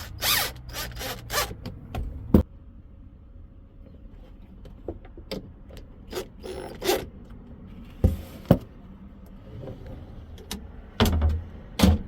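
Irregular knocks, clicks and scrapes of a wooden cabinet drawer being pushed and pulled against a newly fitted child-proof latch lock, with a few sharp bangs as the drawer is stopped by the catch.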